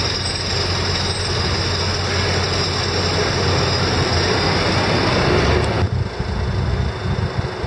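Diesel engine of a Liebherr LTM all-terrain mobile crane running steadily with a low hum while it lifts a heavy load. About six seconds in the sound cuts abruptly to a quieter, more uneven engine noise.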